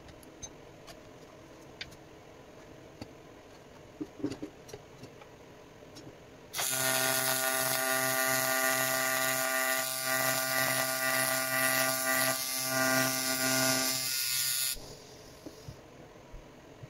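Welding arc on an aluminium intercooler end tank: a loud, steady buzz with a hiss, starting abruptly about six and a half seconds in and cutting off about eight seconds later, with a few brief dips. Before it, only a few faint clicks and knocks.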